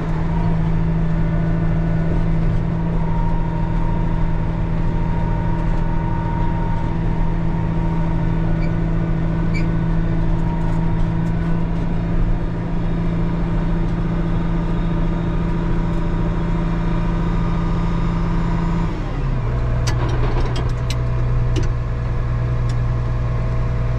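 Case IH 2388 combine's six-cylinder diesel engine running steadily under way, heard from the cab. About 19 seconds in the engine note drops to a lower, steady speed, with a few light rattles.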